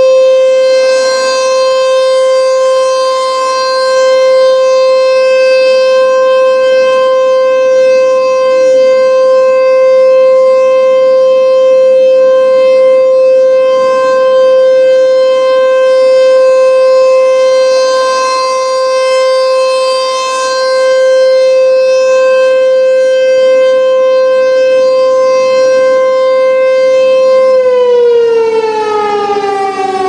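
ASC T-128 rotating civil defense siren sounding a steady alert tone, getting louder and softer in slow swells as the horn turns. About two and a half seconds before the end the pitch starts falling as the siren begins to wind down.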